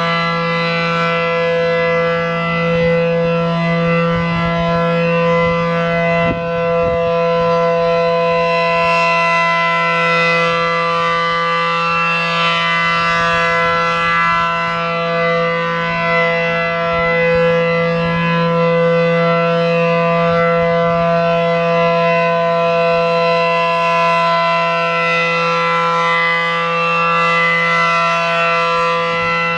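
Reverse-wired A.C.A. P-10 outdoor warning siren sounding a loud, steady tone at full speed, holding its pitch without rising or falling, its level swelling gently.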